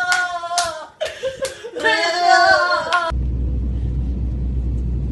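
Loud laughing voices with sharp hand claps about three a second. About three seconds in, this cuts off abruptly to the steady low drone of an airliner cabin.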